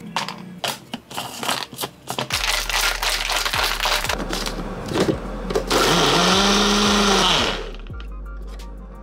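A run of light knocks and clicks as the cup is handled, then a personal bullet-style blender blending a protein shake for about two and a half seconds. Its motor pitch rises as it spins up and falls as it winds down.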